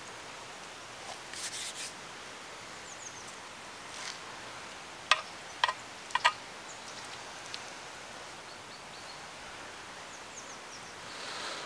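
Outdoor ambience with a steady hiss and a few faint short chirps. A brief rustle comes about a second and a half in, and a quick cluster of four sharp knocks, the loudest sounds, comes about five to six and a half seconds in.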